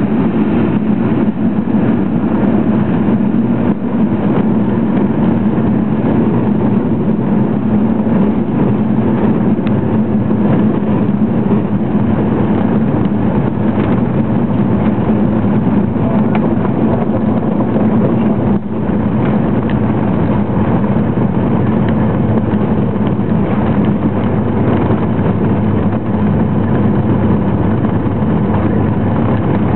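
Cessna 206's single flat-six piston engine and propeller running at a steady pitch, with a brief momentary dip about two-thirds of the way through.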